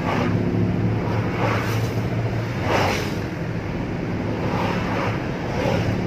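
Toyota Wigo being driven at a steady speed: a constant low engine drone under road and wind noise, which swells and falls every second or so.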